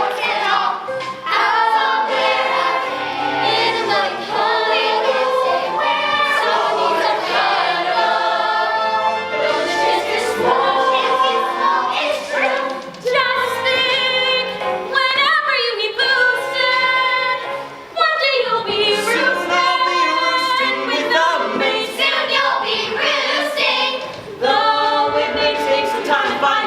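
A children's musical-theatre chorus singing a show number together, with brief breaks between phrases.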